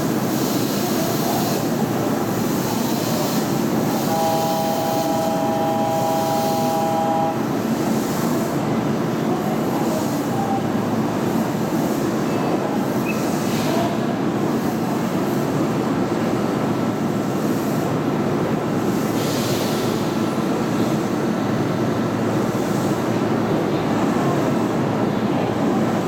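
Train running with steady rail and motor noise. About four seconds in, a train horn sounds one steady note for about three seconds.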